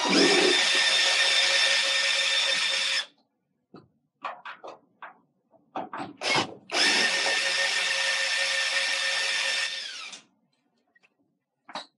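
Cordless drill/driver backing out the two Phillips screws that hold a dryer's door switch, in two steady runs of about three seconds each. A few clicks and knocks of handling come between the runs.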